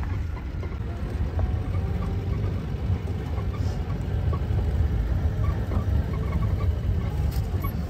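Safari jeep's engine running, a steady low rumble heard from inside the vehicle.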